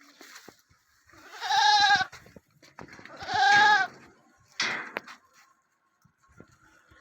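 Sirohi goats bleating: two long, wavering bleats about a second and a half apart, then a shorter third call.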